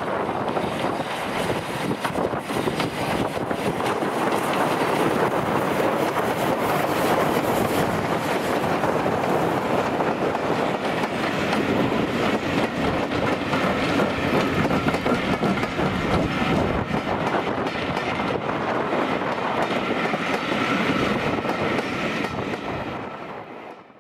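Steam train running past: a steady, loud rush of locomotive exhaust and rolling stock with wheels clattering over the rail joints, fading out near the end.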